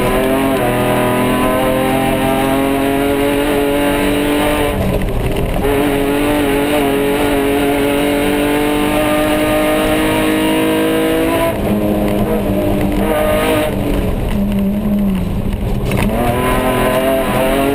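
Off-road race car's engine heard from inside the cabin, pulling hard with its pitch climbing, a gear change about five seconds in, then climbing again. About twelve seconds in the revs drop away as the driver lifts off. A constant rough road noise runs underneath.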